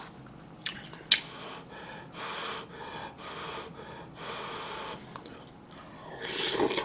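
Close-up eating sounds from a person eating yukgaejang with chopsticks from a paper cup. There are two light clicks about a second in, then a series of short airy breaths. Near the end comes a louder slurp as a mouthful is taken.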